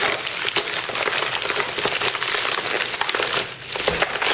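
Plastic poly mailer bag crinkling and rustling as hands pull it open and rummage inside, a continuous crackle of plastic.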